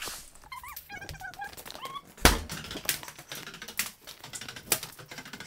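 Handling noise from a handheld phone: a string of clicks, knocks and rubs on the microphone as it is moved about, with one loud knock a little after two seconds in. A few faint, high, gliding squeaks come in the first two seconds.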